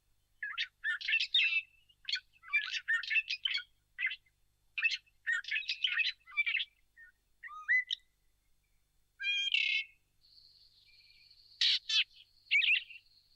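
Crimson-breasted boubou calling: a series of short chirping and whistled phrases. A steady high-pitched tone joins about ten seconds in.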